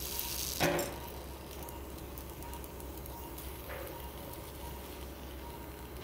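Operating-room equipment noise during cataract surgery: a steady low hum and hiss, with faint short tones, a brief louder noise about a second in and a weaker one near four seconds.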